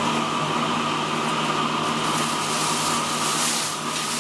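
Steady machine hum with a few held tones, under soft rustling of hands tossing sliced raw potatoes and garlic in a glass baking dish.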